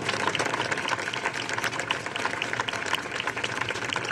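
A crowd applauding, many hands clapping at once in a dense, uneven stream.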